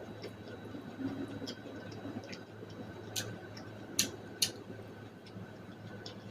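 Close-up eating sounds from boiled corn on the cob being bitten and chewed: scattered sharp clicks of teeth on kernels, loudest three times in the second half, over a steady low hum.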